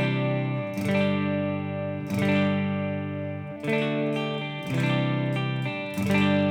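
Thomson TL-1 Telecaster-style electric guitar with passive humbuckers, played on a clean tone: about six strummed chords, each left to ring before the next.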